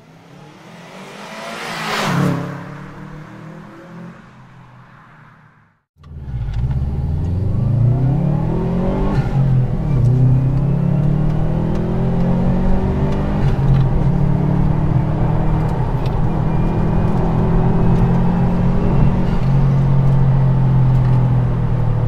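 Subaru WRX STi turbocharged flat-four through a Magnaflow stainless steel cat-back exhaust. The engine note swells to a peak about two seconds in and fades away. After an abrupt cut near six seconds, the revs climb and settle into a steady, loud exhaust drone.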